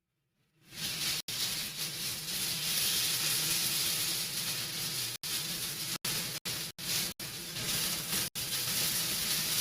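Chicken pieces frying in a very hot pan, a steady sizzle that starts about half a second in, broken by several brief dropouts.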